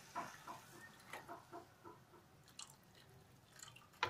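Milk being poured from a jug into a kadhai of sautéed grated carrots: faint, irregular gurgling and splashing, with one sharp click near the end.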